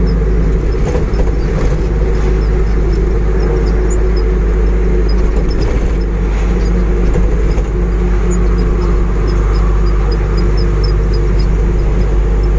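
Hino truck's diesel engine running steadily at cruise with tyre and road noise, heard inside the cab: a constant low drone.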